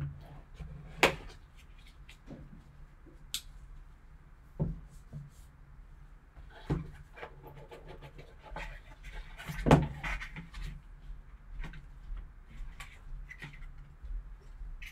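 Sealed cardboard box being cut open and handled: a folding knife slitting the tape seals, then cardboard rubbing and rustling as the box is pulled apart and the lid comes off. Scattered light knocks throughout, the loudest about a second in and again near ten seconds in.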